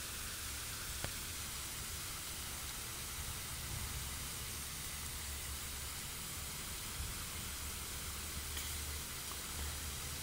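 Steady background hiss with a low, uneven rumble underneath and a faint tick about a second in.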